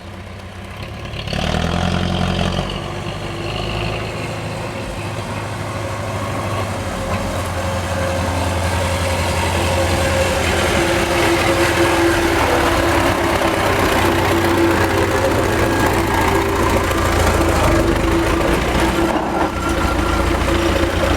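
Old MTZ tractor's diesel engine running steadily. It picks up sharply about a second in and grows louder toward the middle.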